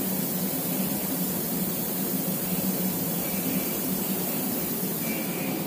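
Steady mechanical hum and hiss from a CNC milling machine and the machine shop around it, with a faint high whine briefly about three seconds in and again near the end.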